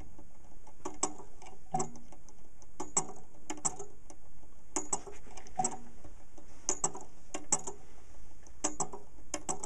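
Hipps toggle pendulum rig ticking as the pendulum swings: sharp mechanical clicks in pairs about 0.7 s apart, a pair roughly every two seconds, from the toggle and its contacts.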